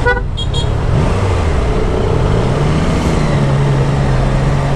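Vehicle engine running in road traffic, its pitch dipping about a second in, then climbing back and holding steady as the throttle changes.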